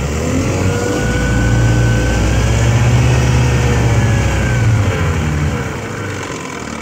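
1969 Johnson 6 hp two-cylinder two-stroke outboard motor running in reverse gear. It is throttled up about half a second in, held, then eased back down near the end.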